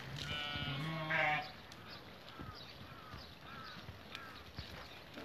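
Sheep bleating: one long, loud bleat over the first second and a half, then a run of short high calls about every half-second.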